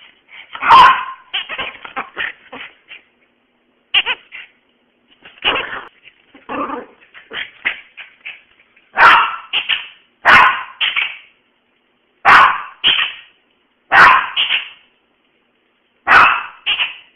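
Small Maltese dog barking and yipping in short, loud bursts, mostly in pairs about one to two seconds apart.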